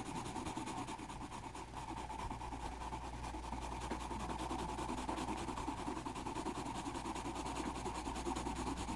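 Grey coloured pencil shading on drawing-pad paper: a steady, rapid scratching of short back-and-forth strokes, with a low steady hum underneath.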